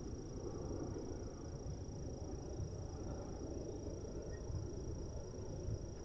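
A continuous high-pitched insect trill over steady, low outdoor background noise.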